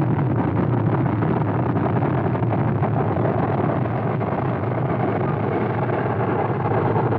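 Rocket engine firing through liftoff and climb: a loud, steady rush of noise that never breaks.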